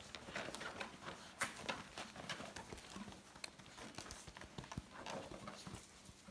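Puppies scrabbling and clambering about, making faint scattered clicks and light rustling as their claws and paws scratch at denim and the floor.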